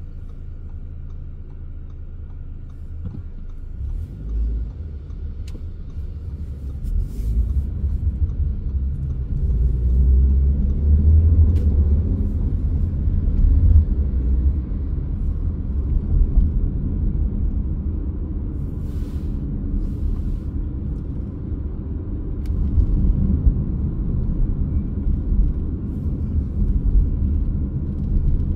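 Low engine and road rumble of a car driving on city streets, heard from inside the car. It swells a few seconds in as the car picks up speed and is loudest around ten to fourteen seconds in.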